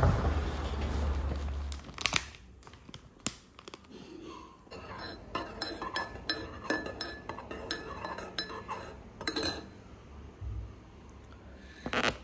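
A metal spoon clinking against a ceramic mug as a drink is stirred: a run of quick, light clinks. It follows a couple of seconds of steady low rumbling noise at the start.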